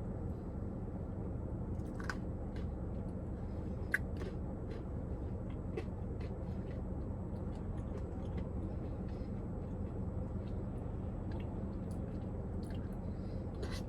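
A person eating a spoonful of Animal Cookie Blizzard (soft-serve with cookie pieces): faint chewing and mouth sounds, with a few light clicks, the sharpest about two and four seconds in. A steady low hum runs underneath.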